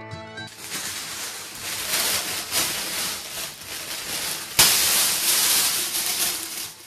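A strange, loud hissing rush of noise, jumping suddenly louder about four and a half seconds in and easing off near the end.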